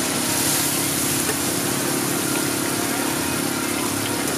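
A motor hums steadily, with an even hiss of background noise.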